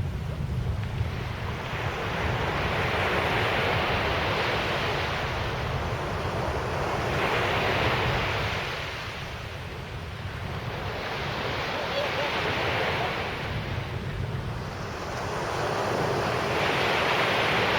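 Sea surf breaking and washing up the beach, swelling and fading about every four to five seconds, with wind rumbling on the microphone underneath.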